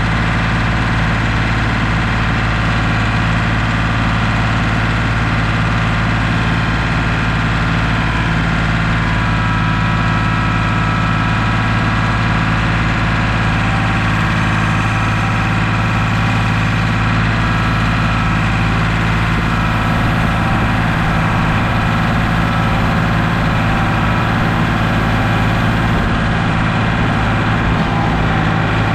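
Heavy machine engine running at a steady idle, even and unchanging.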